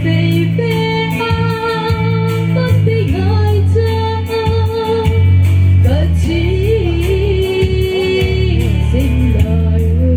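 A woman singing into a microphone, holding long notes, backed by a live band with guitar and a heavy bass.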